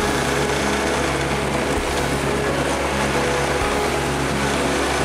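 Steady road-travel noise while riding in city traffic: a rush of wind and road noise with a low engine hum underneath.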